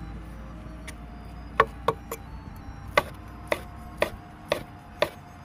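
Chinese cleaver slicing pressed dried tofu into strips on a wooden cutting board: sharp knocks of the blade striking the board, starting about a second and a half in and settling into a steady two a second.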